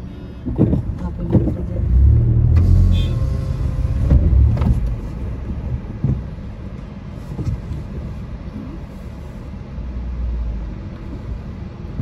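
A motor vehicle's engine running close by, a low rumble that swells about two to five seconds in and again near the end.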